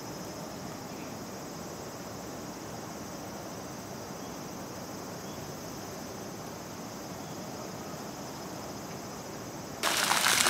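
Steady high insect trilling, as of crickets, over a low outdoor hum. Near the end it cuts abruptly to the much louder splashing of fountain jets falling into a pool.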